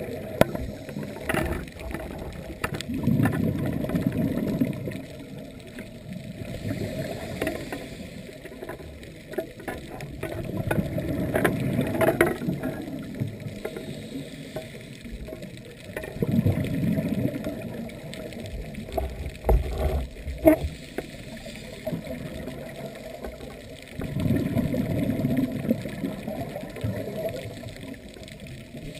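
Scuba regulator breathing underwater: low, muffled bursts of exhaled bubbles every four to six seconds, with a few sharp clicks in between.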